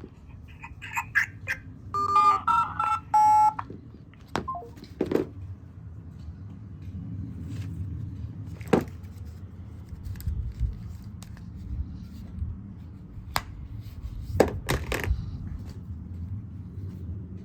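Mobile phone giving a quick string of short electronic beeps and tones in the first few seconds, followed by a few scattered sharp clicks.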